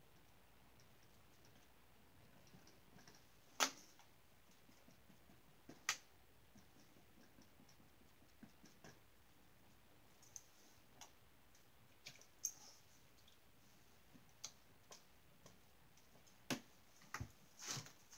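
Occasional sharp clicks and knocks from oil-painting tools being handled, with brush handles and tools knocking against the easel and the cluttered paint table. The clicks are scattered at first and come in a quick cluster near the end as the tools on the table are picked over.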